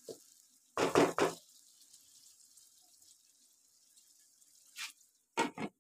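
Kitchen cookware handling at a wok: a faint sizzle of the simmering tomato masala fades out at the start. About a second in there are three quick, loud knocks, then a faint knock and two short knocks near the end.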